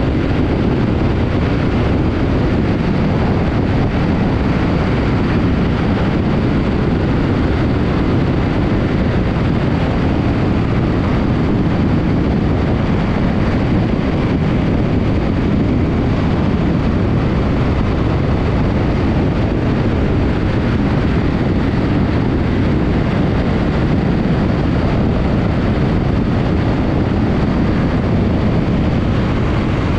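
Heavy wind noise on the microphone of a camera mounted on a moving BMW R1200GS Adventure motorcycle: a loud, steady rush that covers the sound of the bike.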